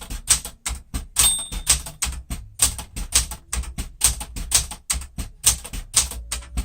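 Keys of a 1972 Smith-Corona Classic 10 manual typewriter striking steadily, about three to four strokes a second, as a line of text is typed. A short bell ring sounds about a second in.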